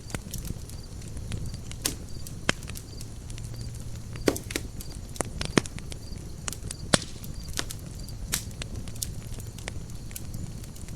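Campfire burning: wood crackling with sharp, irregular pops over a steady low rumble of flame. The loudest pops come about every second or two.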